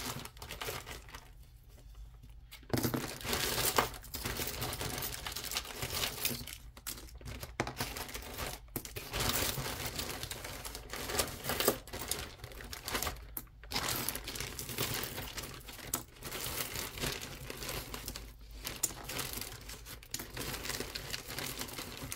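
Clear plastic zip bag crinkling as a hand rummages through a tangle of costume earrings, with small clicks of metal and bead pieces knocking together. The rustling stops for a moment about a second in, then carries on.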